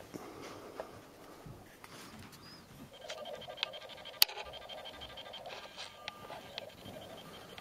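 A newborn baby's faint snuffling breaths and the soft rustle of bedding as she stirs, with one sharp click about four seconds in.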